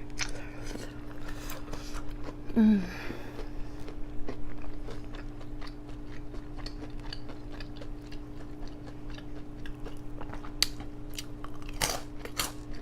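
Close-miked chewing and crunching of fried Hot Cheeto-crusted mozzarella sticks, many small crisp crunches throughout. About two and a half seconds in comes a brief, louder low voice sound that falls in pitch, over a steady low hum.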